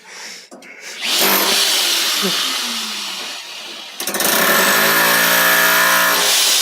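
A loud power tool. A harsh burst of noise starts about a second in and fades away, then a motor starts suddenly with a steady whine about four seconds in and cuts off near the end.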